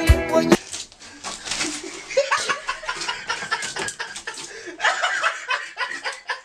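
Music with a drum beat cuts off about half a second in, then people chuckle and laugh in short scattered bursts.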